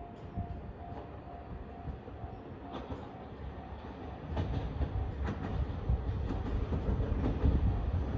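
KiHa 47 diesel railcar approaching: a low engine and wheel rumble that grows louder about halfway through, with scattered sharp clicks.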